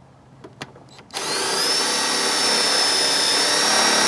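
Cordless drill driver driving a self-tapping sheet metal screw. About a second in, after a couple of light clicks, the motor starts and runs steadily, with a high whine that rises a little as it comes up to speed and then holds.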